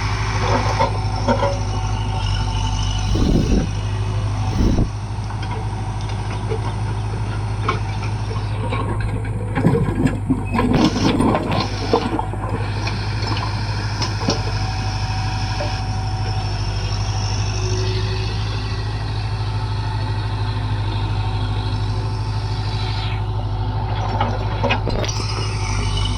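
Diesel engine of a JCB backhoe loader running steadily, with bursts of clattering knocks about three seconds in and again around nine to twelve seconds in.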